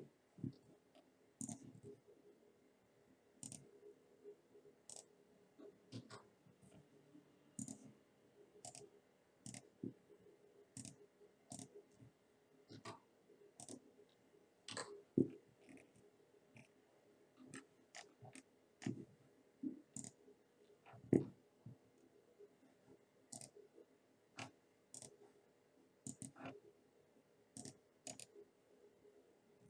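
Faint computer mouse clicks at an irregular pace, roughly one or two a second, a few of them louder than the rest.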